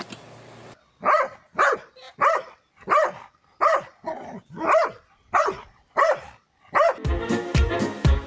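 A dog barking in a steady series, about a dozen short barks a little over half a second apart. Music with a steady beat comes in near the end.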